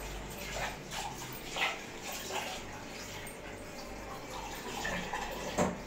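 Water running at a kitchen sink, with a few short clinks and knocks of dishes being washed.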